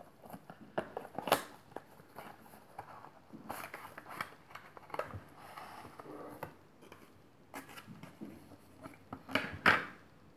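Hands unboxing a small cardboard box: papery scraping and rubbing as the inner tray slides out, with scattered light clicks and taps. The loudest sounds are a sharp knock about a second in and another just before the end.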